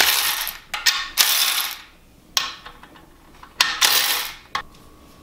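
Hand ratchet wrench clicking in about four short bursts as bolts on a BMW N54 engine block's bed plate are loosened.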